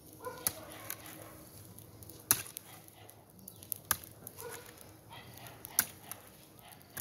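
Hand hoe chopping into dry soil: three sharp strikes about a second and a half to two seconds apart, with a couple of lighter knocks in the first second.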